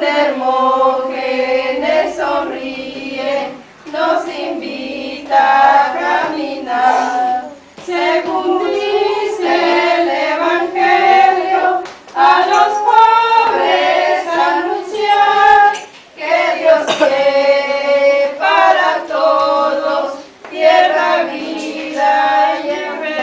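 A group of women singing a religious song together, in phrases of about four seconds with brief pauses between.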